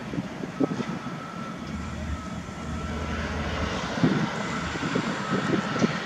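A steady engine drone that slowly grows louder, with a faint steady high whine over it.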